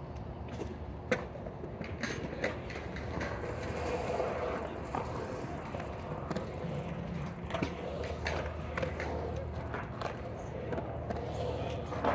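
Skateboard wheels rolling and carving around a concrete bowl, a steady rumble that swells and fades as the rider pumps the walls, with several sharp clacks of the board, the loudest about a second in.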